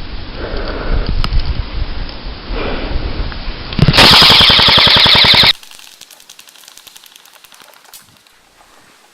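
A burst of rapid automatic fire from an airsoft gun, a fast even rattle lasting about a second and a half, starting about four seconds in. Before it there is rough, uneven noise; after it only faint ticking.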